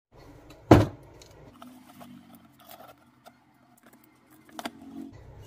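A cardboard box and a paper note being handled on a table: one sharp knock under a second in, then light clicks and rustles, with another short cluster of clicks near the end.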